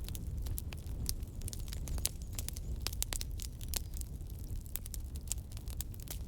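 Burning firewood crackling: many irregular sharp pops and snaps over a low, steady rumble of the fire.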